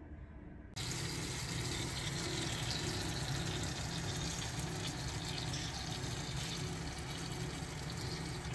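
Steady hiss and hum from inside a hot oven where chickens are roasting over potatoes: juices and fat sizzling in the roasting tray over the low hum of the running oven. It starts about a second in.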